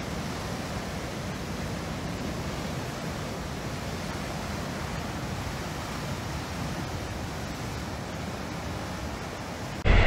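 Heavy storm surf breaking, a steady, even roar of waves with no separate crashes standing out.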